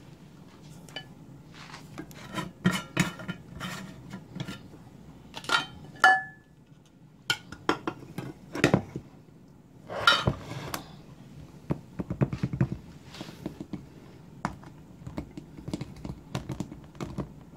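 Irregular clinks, knocks and scrapes of kitchen containers being handled: glass canister jars with plastic lids and a plastic measuring cup, while flour is scooped out, with one short ringing clink about six seconds in.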